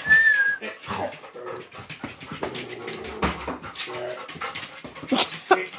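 Excited pet dog whining: one high whine near the start, then panting and scuffling about on a hard floor.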